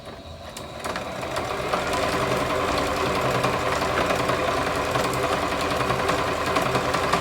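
Sewing machine running, speeding up over the first two seconds and then stitching steadily, tacking across the end of a buttonhole in free-motion mode with the feed dogs lowered.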